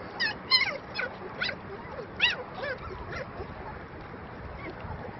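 Young puppies whimpering and yipping: about seven short, high cries, several falling in pitch, in the first three seconds, the loudest about half a second and a little over two seconds in.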